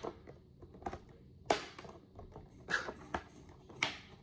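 Scattered sharp clicks and light rustling of a plastic toy package being handled while its last retaining strap is cut.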